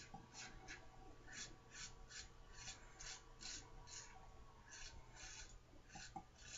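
GEM Pushbutton single-edge safety razor scraping off lathered stubble in a run of short strokes, about two or three a second, faint.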